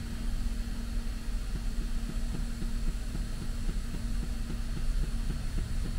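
Steady low hum with a faint, rapid throbbing running through it.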